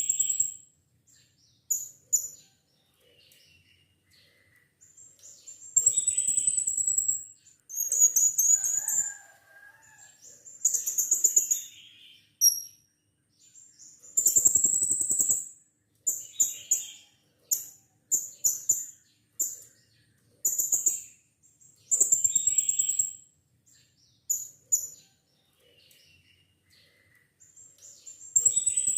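Blue-crowned hanging parrot (serindit) giving shrill, very high chirping calls in short bursts every second or two. Some bursts carry a lower, rapid rattling pulse beneath them.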